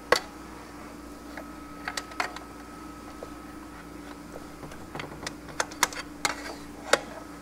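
Sharp metal clicks and clinks, about eight at irregular intervals, from a pry bar being worked against parts seized fast inside a heat-destroyed GM 4L80E automatic transmission case, which he thinks are the center support or intermediate plates.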